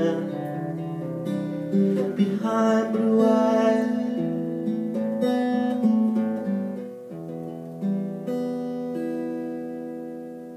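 Acoustic-electric guitar playing solo, closing on a chord that is left to ring and fade near the end.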